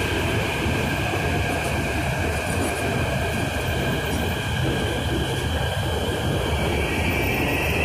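Steady mechanical rumble of a metro station, heard while riding an escalator, with faint high squealing tones that grow a little near the end.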